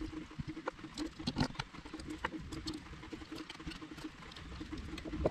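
Small metal clicks and scrapes, irregular and light, as a screwdriver pries open a snap ring and steel hooks and rings are worked onto a copper pipe jig. A faint steady hum runs underneath.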